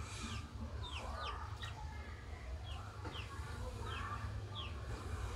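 Birds chirping, about one short falling chirp a second at irregular spacing, over a low steady rumble.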